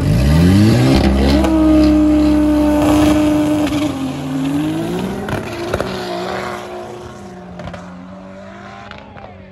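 Drag cars at the start line: a turbocharged Toyota 2JZ straight-six sweeps up quickly and holds at high revs for about three seconds. About halfway through the cars launch, and the engine noise fades away down the strip.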